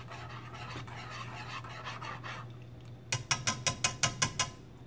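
Wire whisk stirring hot chocolate in a metal saucepan: a soft scraping at first, then a quick run of about ten sharp taps, about seven a second, as the wires clink against the pan. A steady low hum runs underneath.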